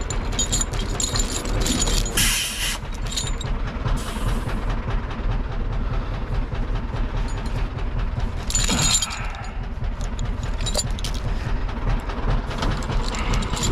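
Diesel tractor engine running steadily, with metallic clinks and rattles over it and short hissing bursts about two, four and nine seconds in.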